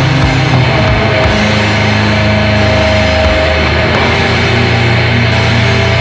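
Loud, distorted extreme-metal/hardcore punk music: distorted guitar and bass chords held over drums, with a cymbal crash about every second and a half.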